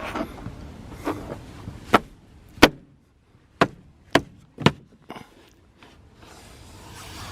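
Sharp clicks and knocks, about six in a few seconds, loudest near the middle: the car's roof lining and plastic interior trim being pressed and snapped back into place.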